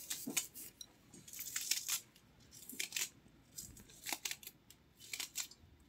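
Faint, irregular crackles and rustles as handfuls of chopped greens are dropped from a steel bowl into a clay pot over a wood-fired mud stove.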